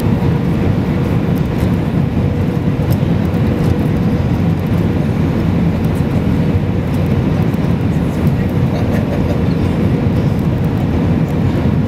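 Airbus A319 cabin noise on final approach, heard over the wing: the engines and rushing air make a steady, loud rumble, with a faint steady hum above it.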